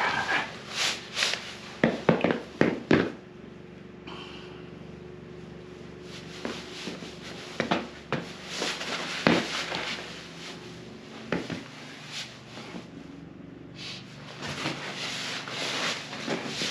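A compact folding camping chair's frame and fabric seat clicking and creaking under a person's weight as he sits and settles into it, with a cluster of sharp clicks in the first few seconds, then scattered lighter clicks and rubbing as he shifts and leans back.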